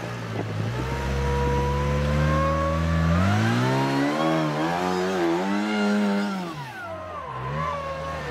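Rock-crawling buggy's engine revving hard under load as it climbs a steep rock face: the pitch climbs steadily for about three seconds, wavers up and down with the throttle, drops sharply about seven seconds in, then rises again near the end.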